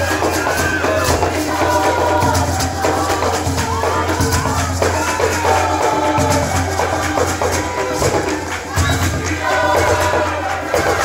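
Choir singing a song in harmony, with steady rhythmic hand-clapping.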